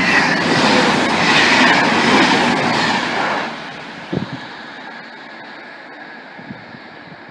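A train passing close by, loud for about the first three seconds, then falling away and fading as it moves off.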